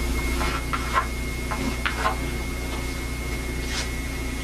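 A watercolor pencil scratching on wet watercolor paper in a few short, faint strokes, over a steady low hum, hiss and a thin high whine.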